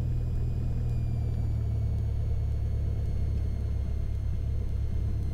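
Cessna 172's piston engine and propeller running steadily at low power on the ground ahead of the run-up: an even low drone.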